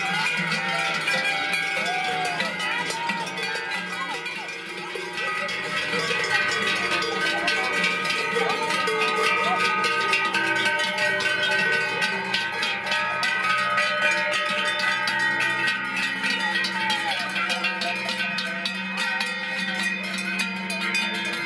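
Large cowbells worn by a herd of walking cows clanging without pause, many bells of different pitches ringing over one another as the cattle sway along.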